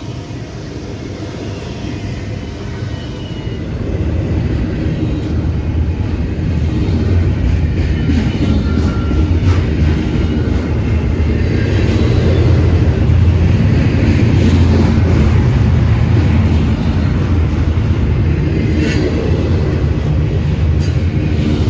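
Diesel freight train running past. A heavy low rumble grows louder over the first dozen seconds and then holds steady, with faint rail clicks.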